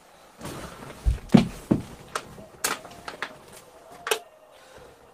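Scattered handling and movement noises in a small vocal booth: a few low thumps about a second in, then several sharp clicks and knocks spread through the rest.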